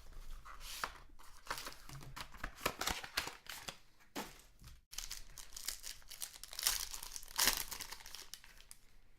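Plastic wrapping crinkling and tearing in irregular crackles and rustles as a sealed trading card box is unwrapped and opened, with a brief break about five seconds in.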